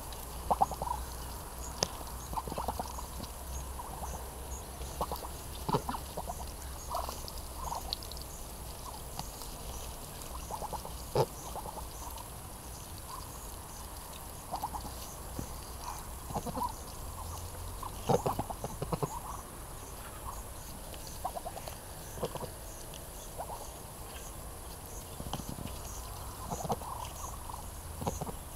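Muscovy ducks feeding on plums, giving scattered short, soft calls, with a few sharp clicks in between.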